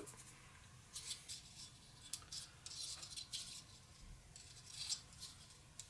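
Faint, scattered scratching and rustling of hands working on a Quad ESL63 electrostatic speaker panel and its old mylar diaphragm film.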